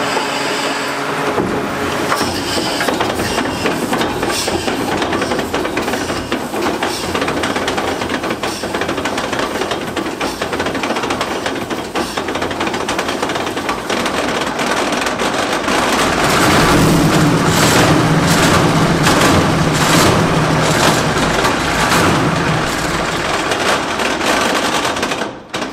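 A Type 69-II tank's 38.8-litre V12 diesel engine running loud in its open engine bay, on its first start after 29 years. It grows louder about two thirds of the way in, then stops abruptly near the end.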